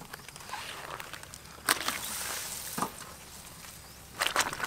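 Stuffed cabbage bundles being set into a large wok of hot water, making splashes and sloshing. There is a sharp splash with a brief hiss about a second and a half in, and a cluster of splashes near the end.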